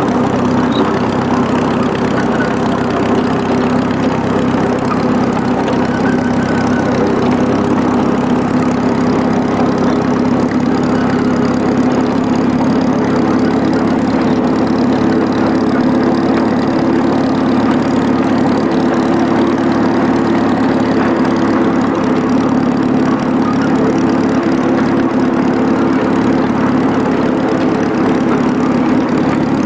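Engine of a miniature railway locomotive running steadily as it hauls the passenger train along the track, a constant drone with no change in speed.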